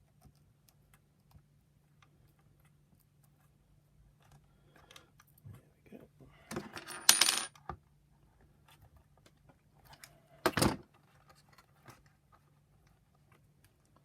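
Small hard parts being handled with light clicks; twice a small object drops and clatters on a hard surface, the first time briefly ringing like metal.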